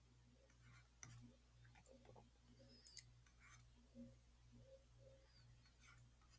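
Near silence with faint stylus clicks and taps on a tablet screen as numbers are handwritten, over a low steady hum.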